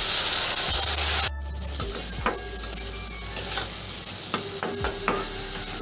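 Water poured into hot oil with frying okra hisses loudly, then cuts off abruptly after about a second. A quieter sizzle follows, with a spatula scraping and tapping against the pan as the okra is stirred.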